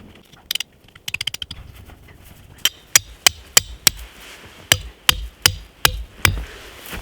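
Repeated sharp knocks of a tool striking, about three a second in two runs of five, with a quick rattle of clicks about a second in.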